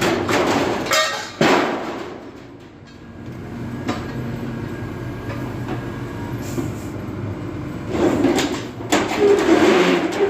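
Backhoe engine running while it tears down a house, with scraping, grinding and knocks of breaking material, loudest at the start and again from about eight seconds in.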